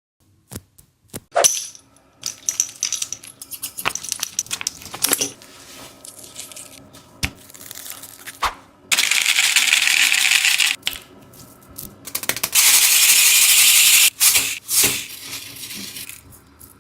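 Close-up ASMR handling of squishy toys: crackling and crinkling clicks, with two long, loud rustling stretches about nine and twelve and a half seconds in.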